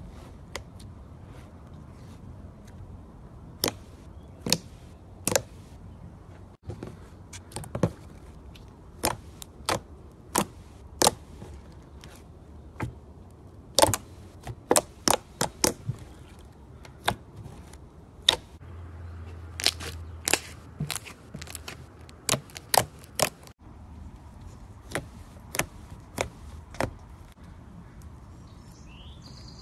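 Soft fluffy slime squeezed and poked by fingers, trapped air popping out of it in sharp clicks and snaps that come at irregular moments, sometimes several a second.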